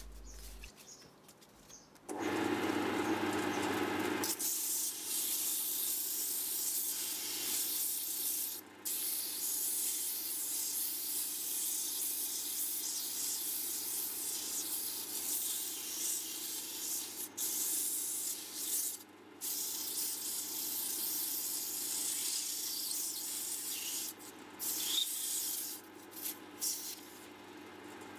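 Strip of sandpaper held against a wooden spindle spinning on a GMC ML100 wood lathe: a steady hiss that starts about two seconds in and breaks off briefly a few times as the paper lifts away.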